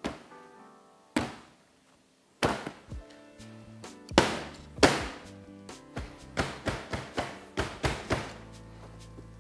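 A piece of bread dough banged down onto a stainless steel bench and worked by hand, giving a string of sharp thuds, the loudest two about four and five seconds in, then quicker lighter knocks as it is pressed flat. Background music plays underneath.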